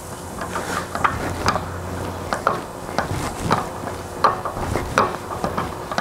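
Home-built lever press hammer striking a sheet-metal disc with its rounded hammerhead over soft rubber, in repeated sharp knocks about one to two a second. The disc is being stretched into a dome.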